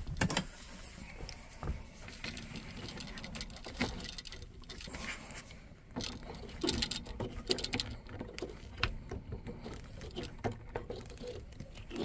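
Scattered small clicks, taps and scrapes of metal pliers working electrical wires and a plastic wire nut.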